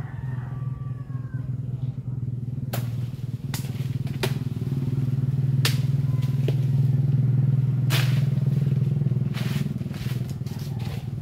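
A steady low engine-like hum runs throughout, loudest in the middle, with sharp cracks and snaps of branches breaking as someone climbs and prunes in a tree, about half a dozen of them from about three seconds in.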